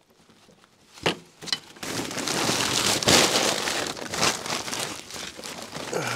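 A couple of sharp clicks about a second in, then a plastic tarp crinkling and rustling in an irregular run as a person crawls and shifts about on it.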